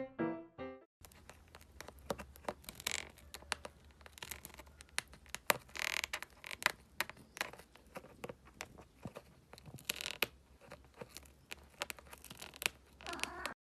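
Kitten gnawing on the edge of a box: quiet, irregular crackling and clicking bites. Piano music ends about a second in.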